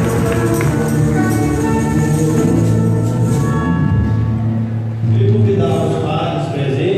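Music with a tambourine shaking and held sung or played notes, as in a church hymn.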